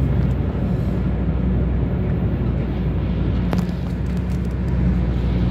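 Car cabin noise while driving: a steady engine hum and road rumble, with one brief click a little past halfway.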